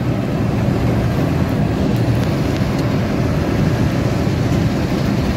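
Steady engine and road noise inside the cab of a moving vehicle driving along a highway.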